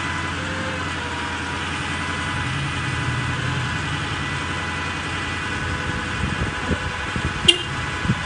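Bucket truck's engine running steadily while its boom is worked from the controls, with a few steady tones over the drone. Near the end come several clicks and knocks, one sharper than the rest.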